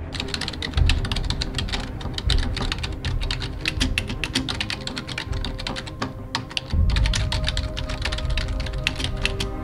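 Typing sound effect: rapid keystroke clicks with a short break a little past halfway, over background music with low sustained tones.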